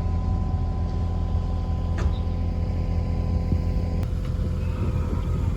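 Excavator's diesel engine running steadily with a deep rumble and a steady whine over it, while it works a log into the clogged outlet. A sharp click about two seconds in.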